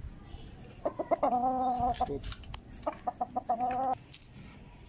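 Aseel chicken calling twice, each call starting with a few quick clucks that run into a held note about a second long.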